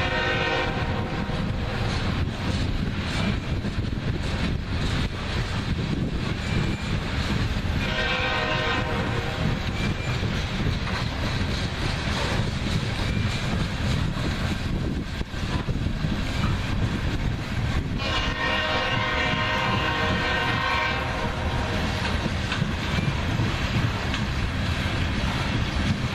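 BNSF freight train led by an ES44C4 and a C44-9W locomotive running with a steady heavy rumble of engines and wheels on rail. The locomotive horn sounds three times: a blast right at the start, another about eight seconds in, and a longer one around eighteen seconds in.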